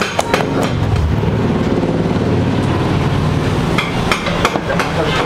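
Hand beating a thick flour-and-beer batter in a steel mixing bowl: a steady run of mixing noise, with several sharp knocks against the bowl from about four seconds in.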